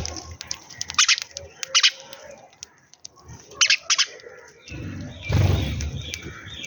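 Sparrows chirping: a few short, sharp chirps, two pairs about two and a half seconds apart, with a louder rush of low noise about five seconds in.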